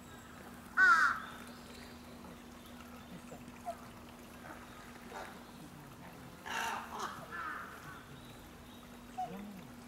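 Bird calls: a short, loud, harsh call about a second in, then a longer run of similar calls around six and a half seconds. A faint steady hum runs beneath.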